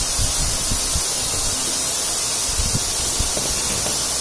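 A person eating with his hands close to the microphone: soft, irregular smacking and chewing sounds and small knocks over a steady hiss.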